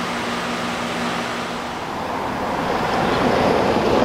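Road traffic noise: a car passes close by, its rush building to its loudest near the end. A steady low hum can be heard under it for the first couple of seconds.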